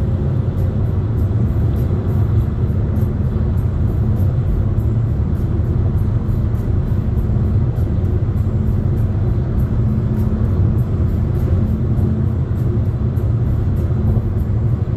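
Steady low rumble of tyre and engine noise heard inside a car cruising at highway speed, with faint music and a light beat running underneath.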